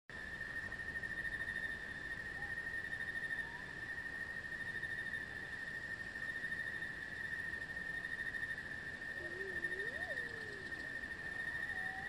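Steady, high-pitched insect trill, like a chorus of crickets, running unbroken. A faint wavering call rises and falls about nine to ten seconds in.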